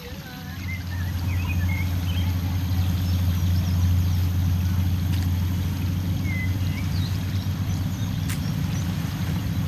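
A low, steady engine drone that comes in about half a second in and holds, with small birds chirping faintly over it.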